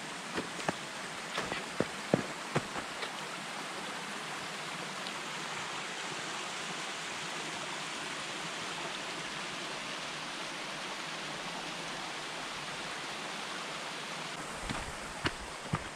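Small mountain creek trickling over rocks, a steady rushing hiss. A hiker's footsteps on snow click through the first few seconds and return near the end.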